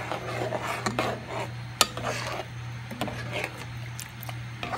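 Metal spoon stirring a thick chicken stew in coconut milk in a pot, scraping and clinking against the pot with several sharp knocks, the loudest about two seconds in.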